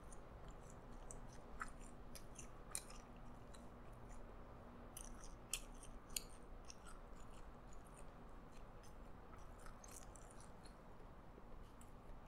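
A person chewing McDonald's Twister fries close to the microphone: faint chewing with scattered short clicks and smacks of the mouth.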